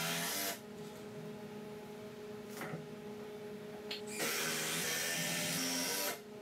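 Cordless drill driving screws into 2x4 framing: a short run right at the start, then a longer run of about two seconds from about four seconds in, with a couple of light clicks in between.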